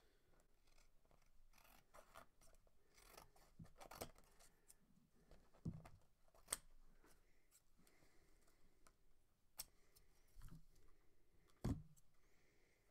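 Scissors snipping through printed photo paper, faint and intermittent, with a few sharper snips, as photos are trimmed to shape.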